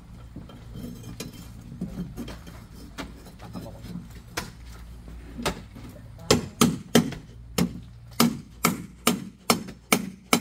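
Hammer blows on a wooden column formwork and its steel clamp. A few scattered knocks come first, then from a little past halfway a steady run of loud strikes, about two a second.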